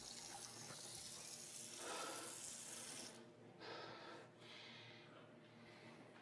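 Tap water running into a sink while a man splashes his face, cutting off about three seconds in as the tap is shut; then a few breaths.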